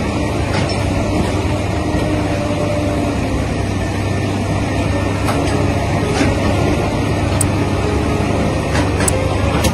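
Scania truck's heavy diesel engine running steadily, with a few sharp clicks in the second half.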